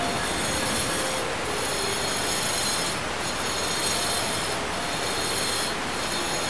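Angle grinder with an abrasive disc grinding a carved stone surface: a steady high screech and hiss that eases off briefly every one to two seconds as the disc is worked across the stone.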